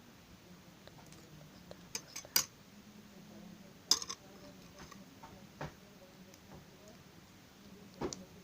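Butter slime being handled: a handful of short, sharp clicks and taps, a quick cluster of three about two seconds in and another single loud one about four seconds in, over quiet room tone.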